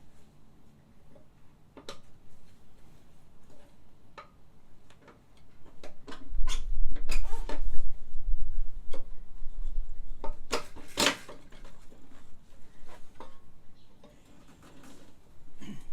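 Scattered light clicks and knocks, thickest in the middle, with a low rumble from about six to ten seconds in.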